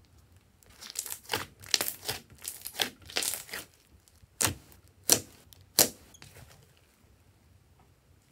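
Slime being squeezed and stretched by hand, giving about three seconds of dense crackling squelches, then three sharp separate pops about half a second apart, and one more right at the end.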